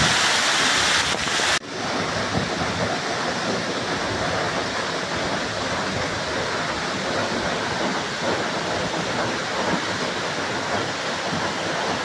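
Waterfall running: a steady, even rush of falling water. For about the first second and a half it is louder and hissier, with water pouring close by. Then it changes abruptly to a steadier, duller rush.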